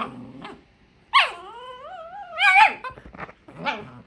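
Dog whining and crying to beg for food: a long, wavering, high whine about a second in that drops and climbs again, then a shorter cry near the end.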